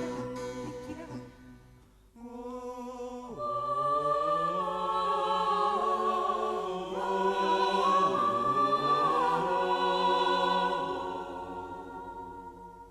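Film score music: after a fading instrumental phrase, a choir-like ensemble of voices comes in about two seconds in and holds long, slowly shifting chords, fading out near the end.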